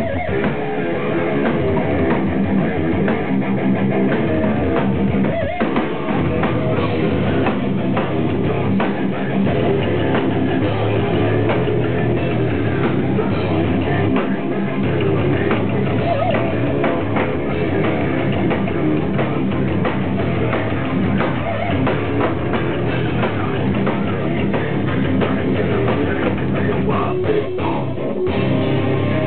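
Heavy metal band playing live: electric guitars and a drum kit.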